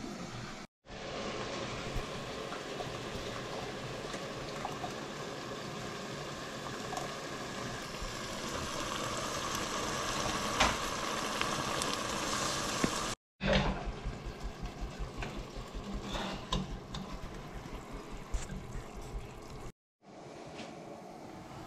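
Liquid cooking in a stew pot on the stove: a steady watery hiss, broken off abruptly by edits about a second in, after about 13 seconds and near the end, with soft low knocks in the section after the second break.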